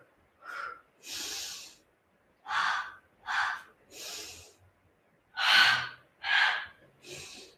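A woman breathing hard through a Pilates core exercise: pairs of short, sharp breaths, each pair followed by a longer hissing breath, repeating about three times.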